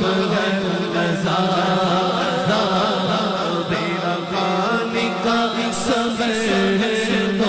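Naat recitation: a solo male voice singing a long, wavering, ornamented melodic line without words that the recogniser could catch, over a steady vocal drone.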